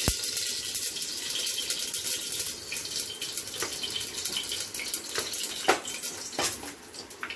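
Mustard oil pouring in a thin, steady trickle from a plastic bottle into an aluminium pressure cooker, with a few light clicks in the second half.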